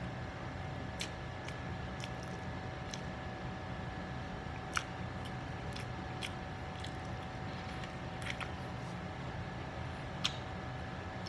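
Close-up chewing of a mouthful of rice, with sharp wet mouth clicks and smacks every second or two, the loudest about five seconds in and another near the end, over a steady hum.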